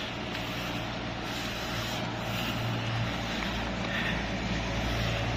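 Street traffic noise: a vehicle engine's steady low hum under a constant hiss, slowly growing a little louder.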